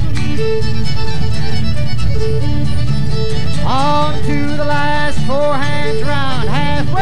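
Lively bluegrass-style fiddle music with a steady, bouncing bass beat, played for square dancing. From about halfway in, swooping, sliding notes rise and fall over it.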